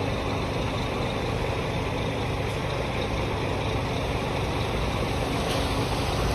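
Scania R440 truck's six-cylinder diesel engine running steadily at low revs, a deep even hum.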